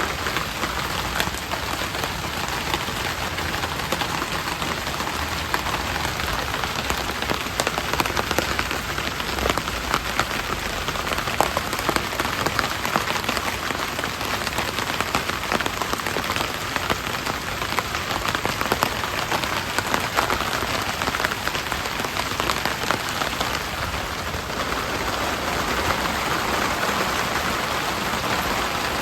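Steady rain falling, with many individual drops tapping close by.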